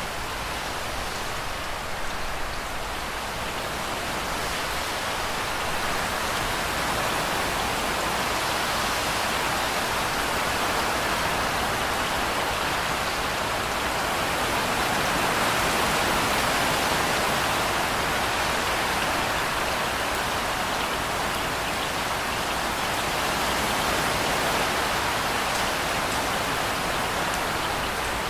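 Steady rain falling in a dense, even hiss, swelling slightly about halfway through.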